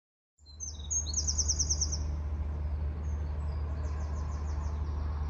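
Small birds singing high, rapid trills over a steady low hum.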